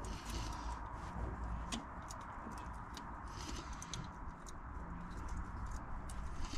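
Scattered light clicks and taps of a harmonic balancer puller and its bolts being fitted to a crank pulley, as the bolts are lined up with the pulley's holes.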